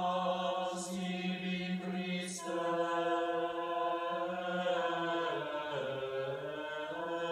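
A male voice chanting the liturgy of a Catholic Mass in long held notes, with the pitch stepping down about two thirds of the way through, heard from a television broadcast.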